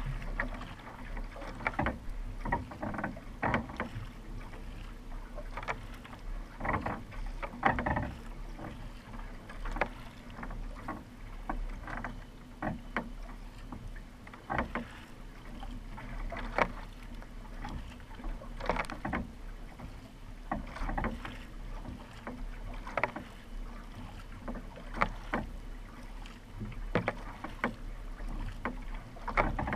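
Kayak paddle blades dipping and pulling through the water in a steady rhythm, about one stroke a second, over the wash of water along the hull.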